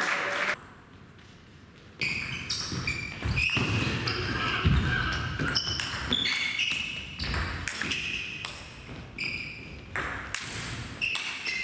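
Table tennis rally: the ball clicks sharply and repeatedly off bats and table, starting about two seconds in, with short high ringing tones among the hits.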